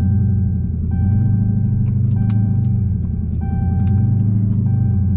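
Seat belt warning chime sounding because the driver is unbelted: a repeating tone about a second long with short gaps between, heard inside the cabin. Underneath is the steady low drone of the Dodge Challenger Hellcat's supercharged V8 while cruising, with a few sharp clicks.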